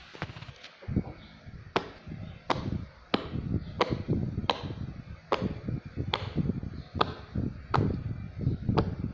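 A steady run of sharp clicks or knocks, about one every three-quarters of a second, over a low rumbling handling noise.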